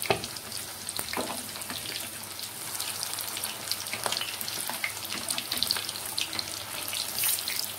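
Masala-marinated chicken leg pieces deep-frying in hot oil in a kadai, the oil sizzling and crackling steadily. A few knocks of a perforated metal spatula against the pan are heard as the pieces are turned over, their first side cooked.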